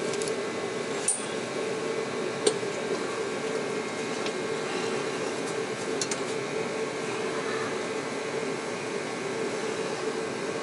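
Steady whirring hum of a running machine, with a few light metallic clicks.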